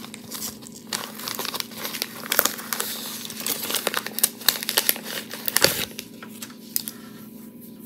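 Thin plastic packaging pouch crinkling and crackling as it is handled and small makeup brushes are pulled out of it, an irregular run of crackles that thins out near the end.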